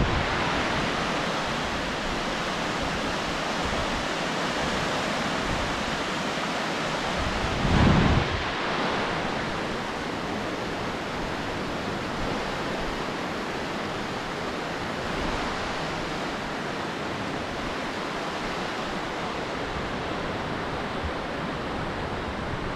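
Steady rush of the Hokitika River flowing through the gorge below, mixed with wind on the camera microphone. A louder low gust of wind buffets the microphone about eight seconds in.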